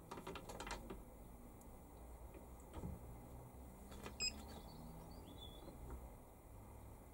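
Faint clicks from a lathe slide being wound by hand, mostly in the first second, with a low knock near the middle. A short high chirp comes about four seconds in.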